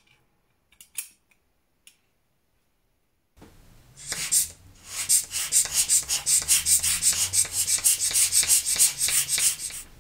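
Victorian carriage clock movement with a cylinder escapement running, heard close up: a few faint clicks, then about a third of the way in a loud, rapid, even ticking begins and runs until just before the end.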